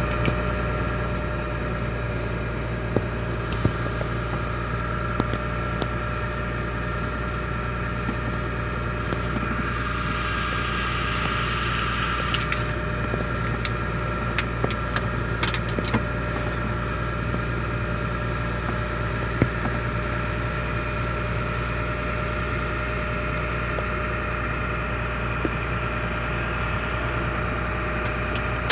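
Steady engine drone and road noise heard from inside the cab of a moving vehicle, with a few brief ticks and rattles around the middle.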